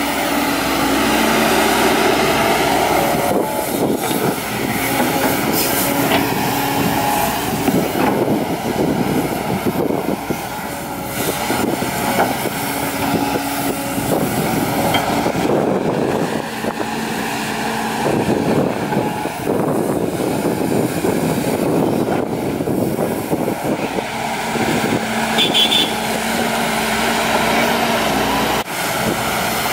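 Volvo crawler excavator's diesel engine running under load with its hydraulics working as it slews and digs soil. The engine note steps up and down again and again as the boom and bucket move, with occasional knocks.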